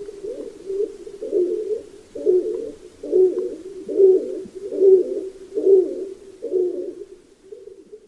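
Stock dove (Columba oenas) singing its breeding-season song: a series of low, repeated coos about one a second. The coos grow louder through the middle and fade away near the end.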